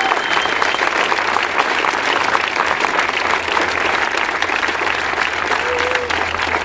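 A crowd applauding: dense, steady clapping from many hands, with a brief whistle at the very start.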